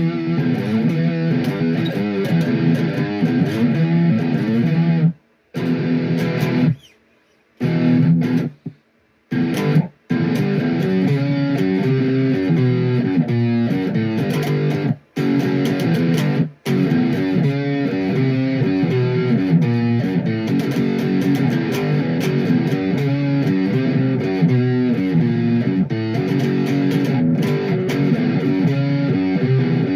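Electric guitar, an ESP LTD H-51, played through a Blackstar 40-watt amp using the amp's built-in distortion: improvised distorted riffs. The playing stops briefly several times in the first ten seconds, then runs on continuously.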